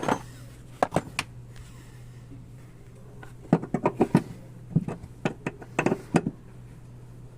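Irregular sharp clicks and knocks in small clusters, over a steady low hum.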